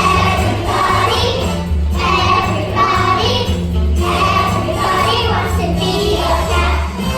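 Children singing together in a group over instrumental musical accompaniment with a steady low bass line.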